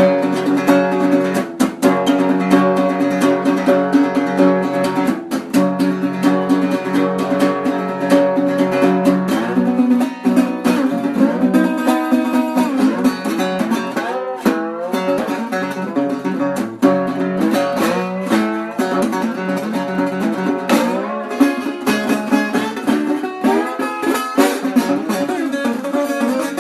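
Blues music led by a plucked guitar, picking notes and chords, with notes bending up and down in pitch about halfway through.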